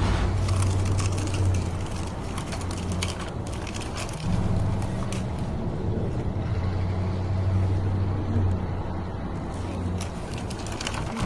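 Radio-controlled model construction truck at work: a steady low engine-like hum that steps up and down a few times, over crackling and crunching of dirt and gravel.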